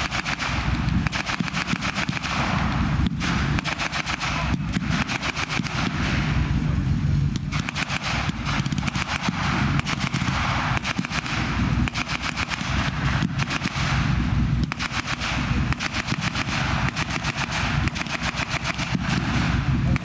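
Repeated bursts of rapid machine-gun fire with blank rounds from the heavy machine gun on an M4 Sherman tank's turret, with short gaps between bursts. Under the shots runs the low rumble of the moving tank's engine and tracks.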